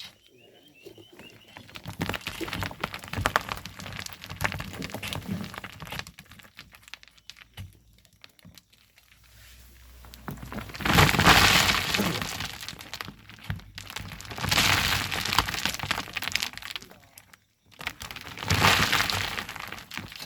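Loose volcanic sand and stones rattling and clattering. It starts as scattered knocks, then comes in three long, loud rushes a few seconds apart, like loads of sand and gravel being thrown or poured.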